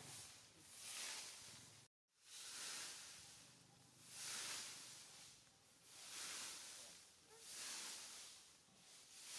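Faint high hiss that swells and fades about every second and a half, broken by a brief total dropout about two seconds in; no animal calls stand out.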